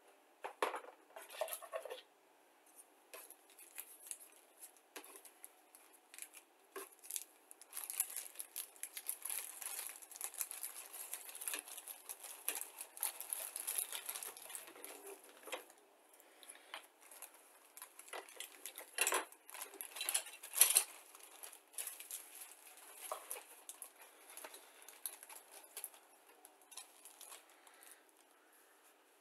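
Clear plastic bag crinkling and rustling as plastic model-kit sprues are handled and pulled out of it, with sharp clicks of the hard plastic sprues knocking together. The rustling is thickest in the middle, and the loudest clicks come about two thirds of the way through.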